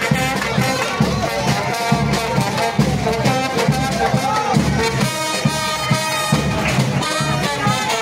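Band music with brass instruments over a steady drumbeat, with crowd voices underneath.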